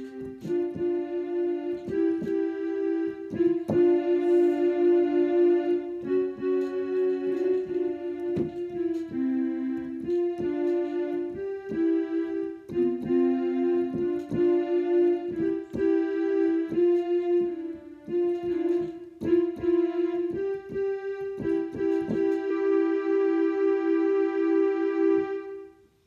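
A digital piano played on its strings voice: a slow tune of held, overlapping notes in the middle register. It stops abruptly near the end.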